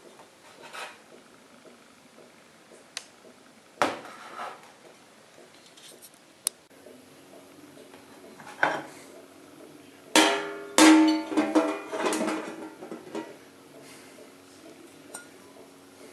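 Dried strips of cured chicken fillet tipped from a plate onto a stainless-steel counter: a few single knocks, then a burst of clatter about ten seconds in, with the steel ringing on for a couple of seconds.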